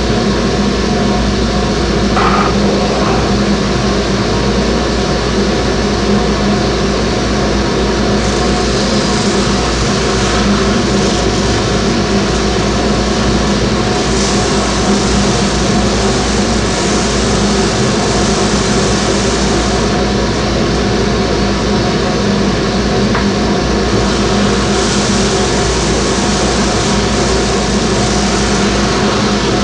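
Large homemade disc sander running steadily, its motor humming under a loud rushing noise as a small wooden drawer is pressed against the sanding disc to take off bandsaw marks and glue lines. The hiss of the sanding grows brighter at times as the wood bears on the disc.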